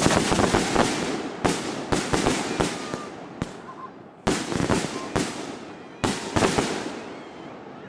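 Consumer fireworks going off in a rapid string of sharp bangs, about eight in all, each trailing off in a crackle. The biggest bangs come at the start and twice more in the second half.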